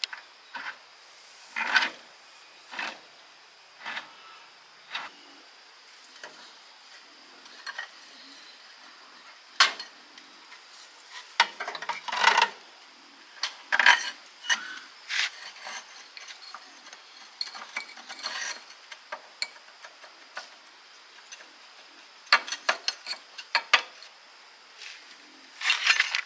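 Irregular metallic clinks and knocks of hand tools and gearbox parts being handled and worked on, with clusters of quick taps near the end. A faint steady high tone runs underneath.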